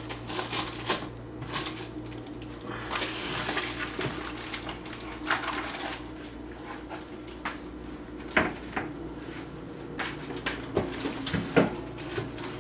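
Kitchen handling noise: a stainless steel mixing bowl and other kitchen items clinking and knocking on a wooden tabletop, irregular, with a few sharper knocks in the second half, over a faint steady hum.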